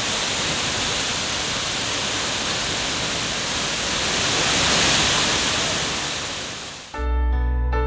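A steady rushing noise, like falling water or white noise, that swells a little around five seconds in and then fades. About seven seconds in it gives way to music: sustained chords over a deep bass note.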